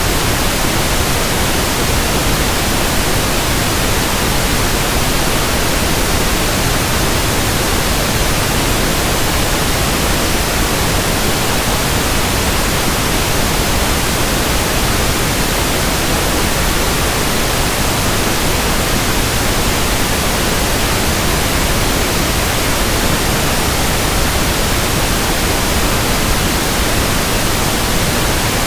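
Pink noise test signal: a steady, loud, even hiss across the whole audible range, used for measuring frequency response.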